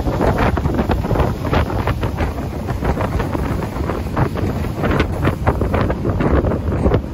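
Wind buffeting the microphone on a moving open boat, in uneven gusts, over the rush of the boat running across the water.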